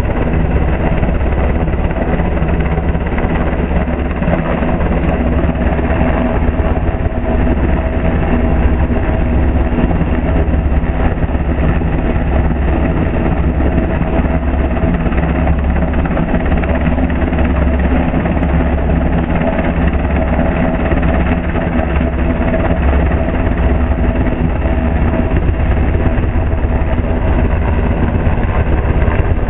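Coast Guard MH-60 Jayhawk helicopter hovering close overhead: loud, steady rotor and turbine noise with a pulsing low rotor beat.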